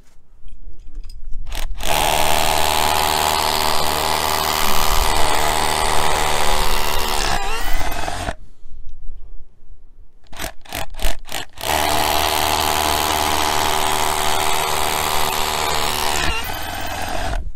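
DeWalt SDS drill boring fixing holes into a masonry pillar. There are two long steady runs of about six and five seconds, each winding down at its end, with a few short trigger blips between them.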